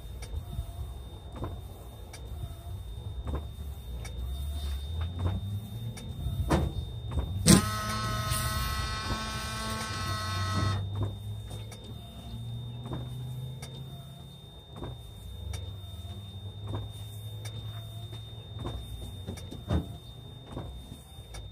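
Windshield wiper motor of a 1999 Freightliner running the newly replaced wiper arm back and forth across the glass, with a knock about every second as the arm sweeps. Partway through, the washer pump whines for about three seconds as it sprays fluid onto the windshield.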